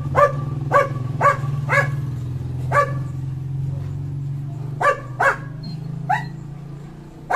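A dog barking repeatedly, about eight short barks at uneven intervals, over a steady low hum that fades out near the end.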